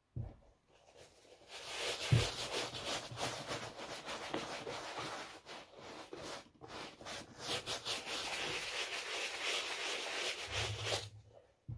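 Shoe brush scrubbing a wet leather Nike Jordan 1 Low sneaker with sneaker cleaning solution, in rapid short strokes, starting a second or two in and stopping just before the end. A single knock sounds about two seconds in.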